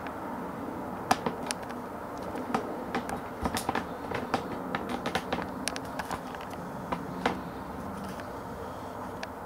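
Camera handling noise: irregular sharp clicks and taps over a steady low hum.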